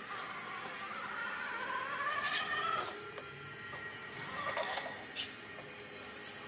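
Electric drive motor and gears of a remote-control toy tractor whining, the pitch rising over the first few seconds and then holding steady, with a few short clicks.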